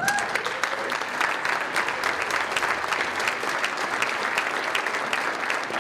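Banquet audience applauding, a dense steady patter of clapping. Someone briefly calls out as it begins.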